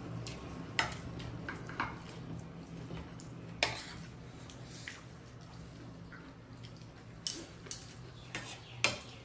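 Dishes and utensils clinking and tapping during a meal, with about half a dozen sharp clinks spread through, over a steady low hum.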